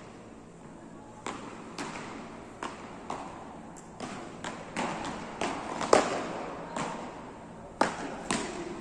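Beach tennis ball struck by solid paddles in a quick volley exchange: a string of sharp, irregular hits about every half second, each echoing briefly in a large hall, the loudest about six seconds in.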